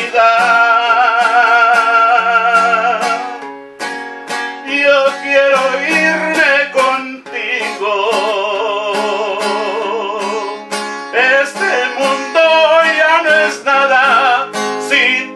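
A man sings a slow ballad, accompanying himself on a strummed acoustic guitar. Two long notes are held with a wavering vibrato, one at the start and one a little past the middle, over steady strumming.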